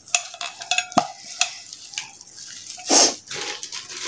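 Hand mixing moist chopped onions and gram flour in a stainless steel bowl: irregular wet squishing with small clicks of fingers against the steel, and a louder rustle about three seconds in.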